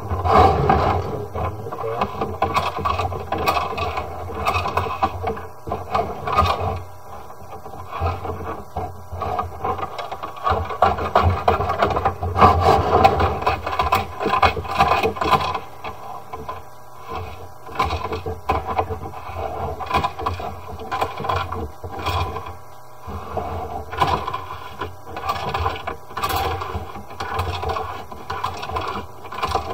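Irregular scraping and rattling of a sewer inspection camera's push cable being fed into and drawn back along a clay drain line, over a low steady hum. It is louder about a second in and again around the middle.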